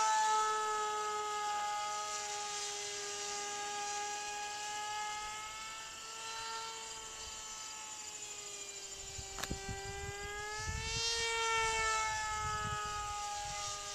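Hobbyzone Aerobird RC plane's brushed Speed 400-class ferrite-magnet motor and 6x3 propeller whining in flight: a steady pitched drone that slowly sags and rises in pitch, with a small rise about eleven seconds in. From about nine seconds in, wind buffets the microphone with low rumbles, and there is one sharp click.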